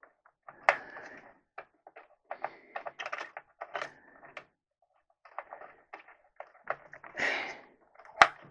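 Hands working inside an open Lenovo H410 desktop case: scattered clicks and rustles of cables and plastic parts being moved, with a longer scrape about 7 seconds in and one sharp click near the end.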